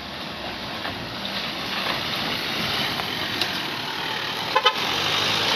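Isuzu Traga box truck climbing a rough broken-surface incline and passing close by, its engine and tyres growing steadily louder as it nears. Near the end a vehicle horn gives two short toots.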